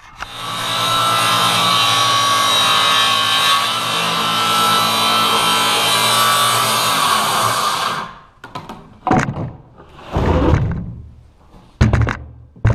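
Corded circular saw cutting a gentle curve along a pencil line in a pine board, running steadily for about eight seconds and then stopping. A few knocks and thumps follow near the end.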